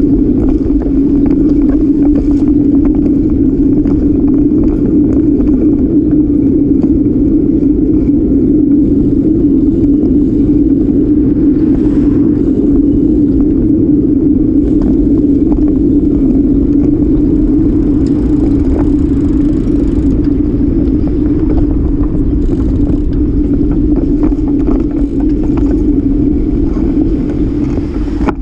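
Wind rushing over the microphone of a bicycle-mounted camera while riding, with tyre and road rumble: a loud, steady low drone with faint scattered rattles.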